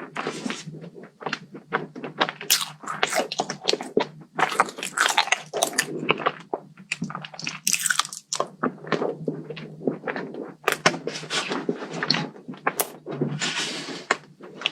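Close-miked chewing and crunching of a crunchy kadaif (kunafa) chocolate dessert: irregular, rapid crackling bites and chews with no pauses.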